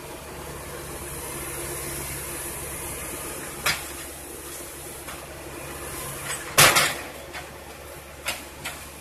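Wheeled excavator's diesel engine running steadily at low revs, with a few sharp knocks over it, the loudest about two-thirds of the way through.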